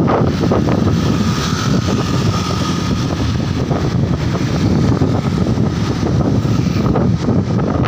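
Wind buffeting the microphone of a moving motorcycle, over the steady running of motor scooter engines.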